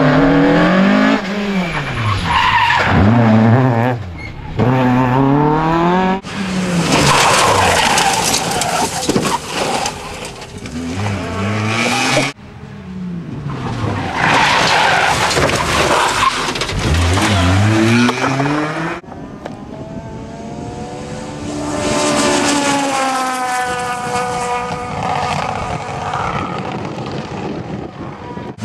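Rally cars, the first a Mk2 Ford Escort, driven flat out past the listener, engines revving hard and rising and falling in pitch through gear changes. The sound cuts abruptly from one car to the next three times, and the last car is fainter with its engine note climbing steadily as it accelerates.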